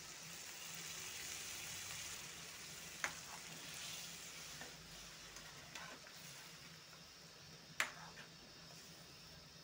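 Dry fish and potato curry sizzling in a metal kadai just after water is poured in, the hiss easing off after a few seconds. A steel ladle stirs it and clinks against the pan a few times, most sharply near the end.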